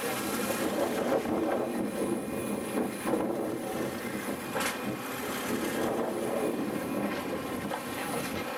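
Steady running of the fishing boat's engine, with wind on the microphone.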